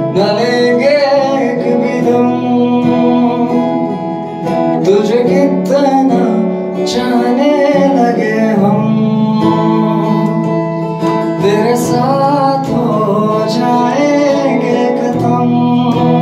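Young man singing a Hindi-Urdu song into a microphone, his voice gliding and sustaining long notes over a strummed guitar accompaniment.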